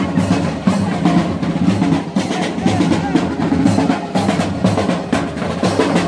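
Marching band playing in the street: bass drums and hand cymbals beating a steady march rhythm, about two hits a second.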